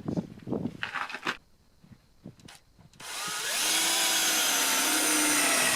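A few knocks as the piece is handled, then about three seconds in a power drill spins up and runs steadily, drilling into the wooden deflector at the bottom of the door.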